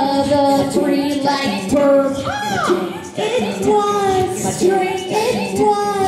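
Layered female vocals, several sung lines overlapping as a looped vocal backing, with one voice swooping up and back down about two and a half seconds in.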